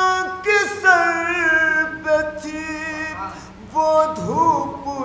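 A man singing an Urdu manqabat, a devotional praise poem, without accompaniment through a microphone, drawing out long held notes that bend between phrases.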